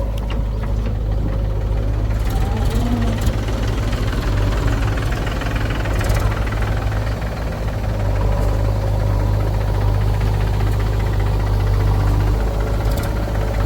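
Heavy diesel engine of earth-moving and farm machinery running steadily near idle with a deep, even hum. A few short clicks sound over it.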